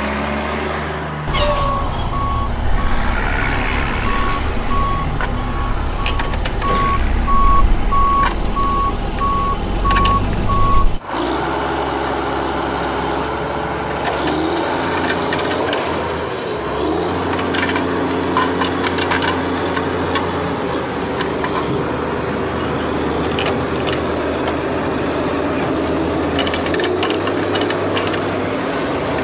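Garbage truck's diesel engine running with its reversing beeper sounding about twice a second. The beeping stops abruptly about eleven seconds in, and a steady engine-like rumble goes on after it.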